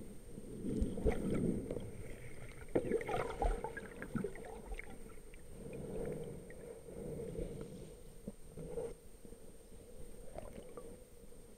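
Muffled rumbling and gurgling of water moving around a camera housing held underwater, with scattered knocks and clicks, the loudest a few seconds in. A faint steady high whine runs under it.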